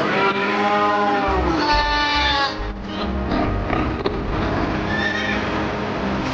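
Background music with a steady bass beat, with a farm animal's bleating call over it in the first two to three seconds.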